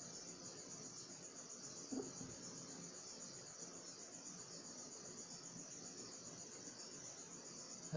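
Faint, steady high-pitched trill running throughout, with one brief soft sound about two seconds in.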